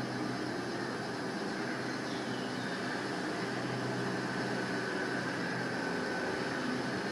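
Steady room hum with a faint higher whine.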